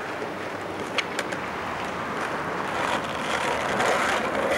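Skateboard wheels rolling on pavement, a steady grinding rumble that grows louder near the end, with a single sharp click about a second in.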